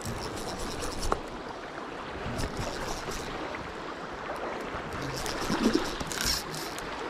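Steady rush of river current, with a few faint clicks.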